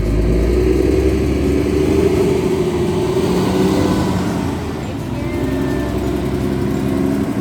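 A vehicle engine running steadily, its pitch wavering slightly.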